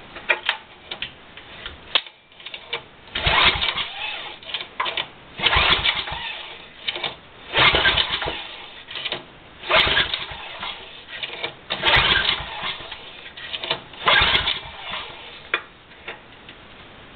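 Recoil starter rope on a Tecumseh 8 hp Snow King engine pulled about six times, roughly two seconds apart. Each pull cranks the engine over with a loud rasp. The spark plug is out and a compression gauge is screwed into the cylinder head, so the engine turns over without firing.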